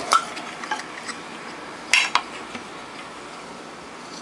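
A few sharp clicks and light metallic clinks of small tools and parts being handled on an electronics workbench: one at the start and a close pair about two seconds in, over a steady faint hiss.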